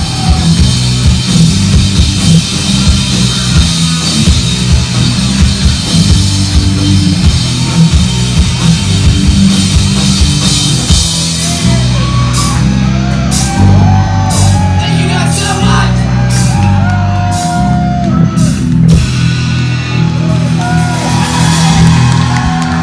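A live rock band playing loud: distorted electric guitars, bass guitar and drum kit. About halfway through, the full drumming breaks into short stop-start hits under a wavering melodic line.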